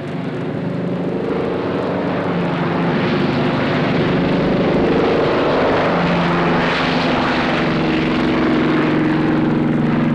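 Single-engine propeller aircraft running at full power as it takes off, a loud, steady engine drone whose pitch shifts a little midway.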